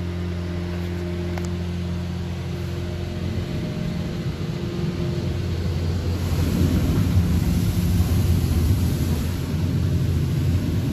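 Magic Wand neXus touchless car wash heard from inside the car: a steady machine hum from the wash's pump, then about six seconds in a louder rushing spray as the water jets sweep over the car's side window and roof.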